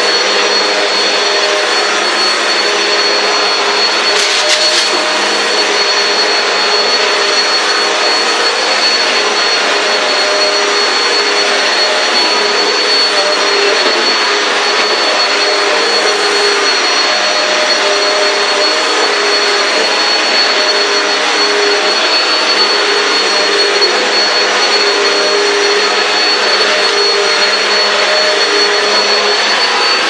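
Hoover Nano Cyclonic vacuum cleaner running steadily, with a continuous high motor whine over the rush of air. A brief click comes about four seconds in.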